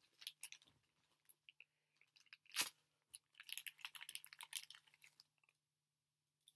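Faint crinkling of plastic packaging and small plastic clicks, with one sharper click about two and a half seconds in and a dense stretch of crackling near the middle.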